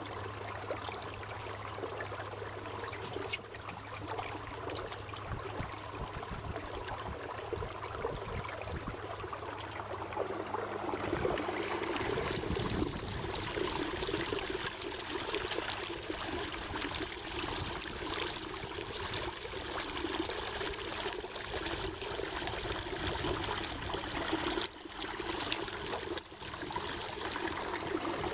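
Electric trolling motor humming steadily as the canoe moves, with its propeller wash churning and splashing behind the stern; the rushing water gets louder partway through.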